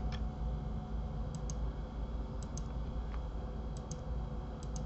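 Computer mouse clicking: about five pairs of short, sharp clicks, each a button press and release, spread over a few seconds above a low steady hum.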